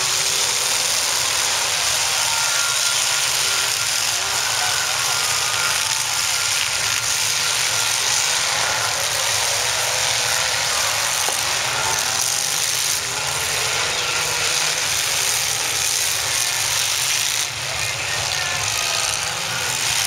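Demolition derby cars' engines running and revving in the arena, under a steady din of crowd noise from a packed grandstand.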